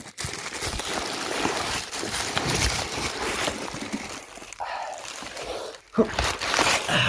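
Cardboard box and packing material being handled and pulled open by hand: a continuous, irregular rustling and scraping, with a brief louder knock about six seconds in.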